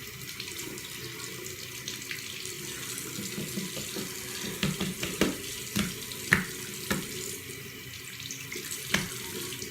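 Water running from a tap into a sink, still running cold before the hot water comes through, with hands rinsing under the stream and a few sharp splashes and knocks midway and near the end.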